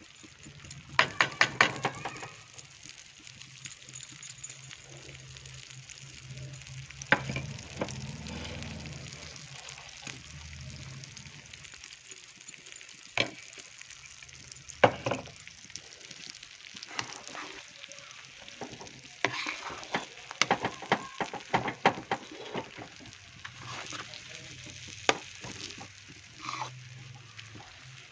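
Gram flour (besan) roasting in ghee in a metal kadhai, stirred with a metal spatula: irregular scrapes and clinks against the pan come in clusters over a steady low hum.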